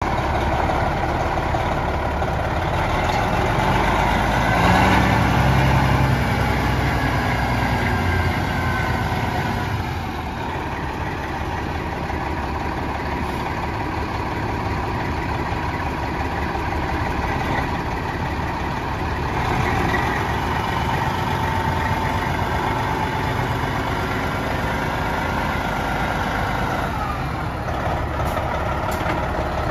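1996 Peterbilt 379 road tractor's diesel engine idling steadily, louder for a moment about five seconds in.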